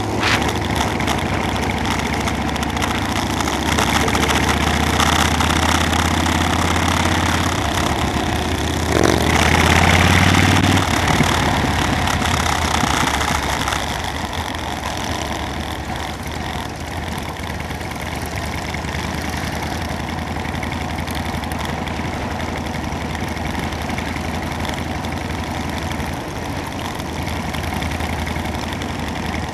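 Motorcycle engine running on the road under a steady rush of noise. About nine seconds in it swells louder for a couple of seconds, then settles a little quieter and steadier.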